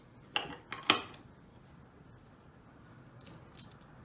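Plastic LEGO bricks clicking as they are handled and pressed together: two sharp clicks in the first second, the second one the loudest, then a few faint taps.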